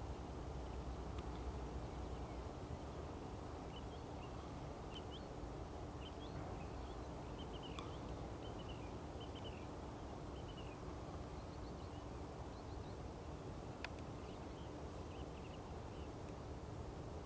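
Small birds chirping in short, scattered calls over a steady low outdoor rumble with a faint constant hum. Two sharp clicks, about halfway through and near the end.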